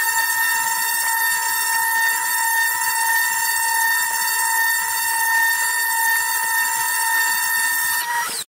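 Festool ETS EC 150 brushless random orbital sander running on a wooden board under a soft white pad: a loud, steady high whine that is switched off just before the end.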